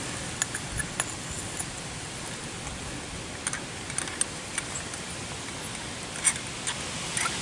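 Steady hiss with scattered light clicks and taps as the parts of a freeze-proof faucet are hand-tightened back together.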